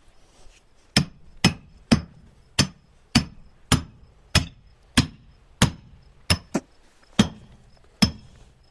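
A steel hammer striking steel splitting wedges, about thirteen sharp metallic blows at roughly one and a half a second, each with a brief ring. The wedges are being tapped into a black oak log to split it into quarters.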